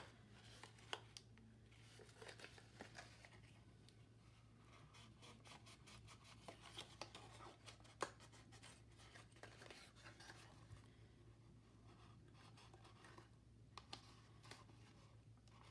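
Faint rustling and small clicks of cardstock being folded and pressed together by hand, the sharpest click about eight seconds in, over a low steady hum.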